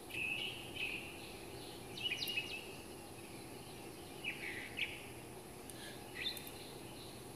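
Birds chirping in short bursts of calls about every two seconds, over a steady low wind and road noise from riding a bicycle.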